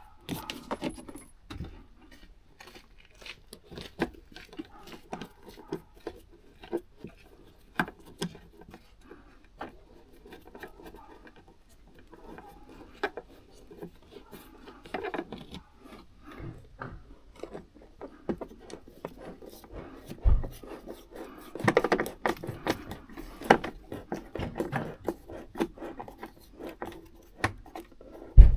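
Hand work with small hardware and trim parts: scattered clicks, clinks, rubs and scrapes as screws with washers are handled and fitted, with a dull thump about twenty seconds in and a sharp knock near the end.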